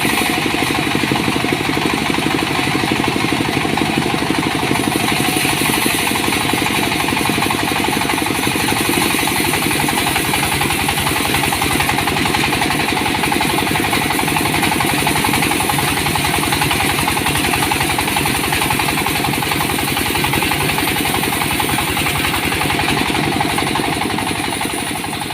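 Engine of a home-built sawmill running steadily with a fast, even pulse, beginning to fade near the end.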